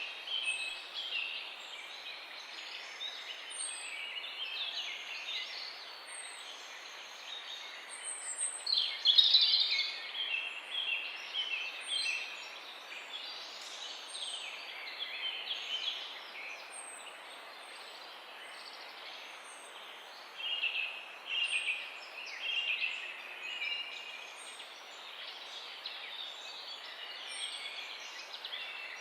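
Several songbirds singing and chirping at once over a steady background hiss, with thin high notes repeating every second or two and a louder burst of song about nine seconds in.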